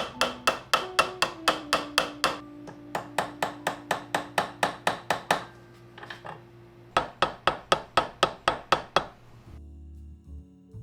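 Small hammer rapidly striking, peening the stainless steel handle pins of slip joint knives: three runs of quick, even taps about five a second with short pauses between, stopping about nine and a half seconds in. Background music plays underneath.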